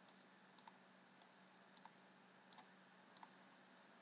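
Faint computer mouse clicks, six of them about every half-second, several doubled like a button pressed and released, over a faint steady hum.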